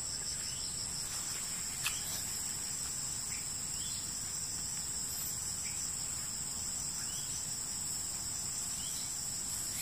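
Steady, high-pitched insect chorus from the surrounding forest, with one faint click about two seconds in.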